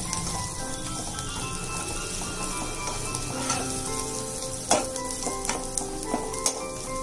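Coarsely ground peanut and green chilli chutney sizzling in butter in a nonstick kadai while it is stirred with a slotted steel spatula. The spatula scrapes and knocks against the pan a few times, loudest about halfway through.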